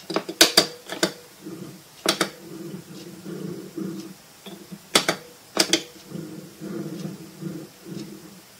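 The ball of a military trackball rolling in its housing as it is spun by hand, a low rumble that comes and goes. Sharp clicks are heard in clusters, the loudest about half a second in and about five seconds in.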